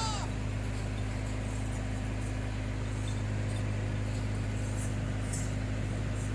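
Steady low mechanical hum at an even level, with the tail end of a goat's bleat, falling in pitch, right at the start.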